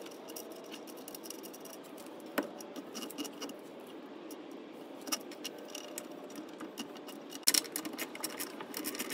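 Light metallic clicks and clinks of bolts and mounting hardware being handled as a new rear shock absorber is fitted into its upper mount, with a sharp click about two and a half seconds in and a quick run of clicks about seven and a half seconds in.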